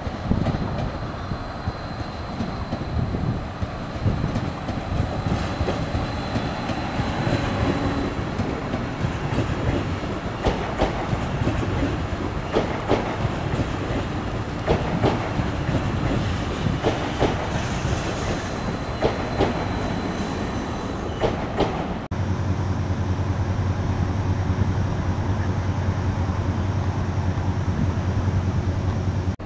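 A train rolling past on the rails, its wheels clicking repeatedly over rail joints, with a thin high wheel squeal. About three-quarters of the way through the sound cuts abruptly to a steady low hum.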